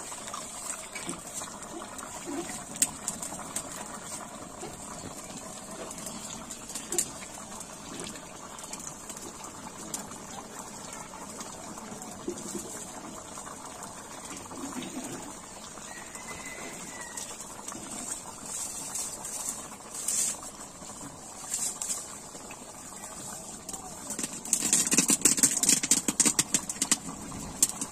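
Thin curry boiling hard in a large iron kadai over a wood fire, bubbling with scattered pops and crackles, and a louder spell of rapid crackling near the end.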